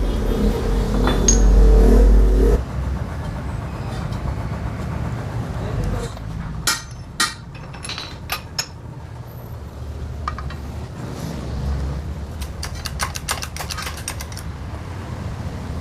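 Low rumble that cuts off abruptly about two and a half seconds in, then scattered metal clinks and taps, with a quick run of clicks near the end, from tools being worked against a bent alloy motorcycle wheel rim during straightening.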